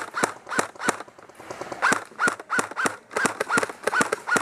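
Airsoft rifle firing a rapid series of single shots, about fourteen sharp cracks each with a short pitched ring, with a brief pause about a second in.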